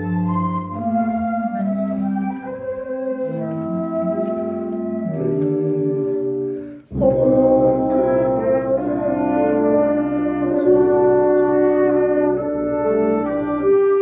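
Wind ensemble playing held, brass-heavy chords. The music stops for an instant about seven seconds in, then comes back louder and fuller.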